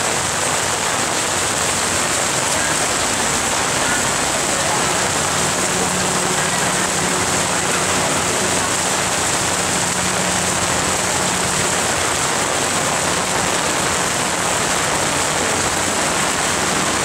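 Heavy rain falling steadily, an even dense hiss with no let-up.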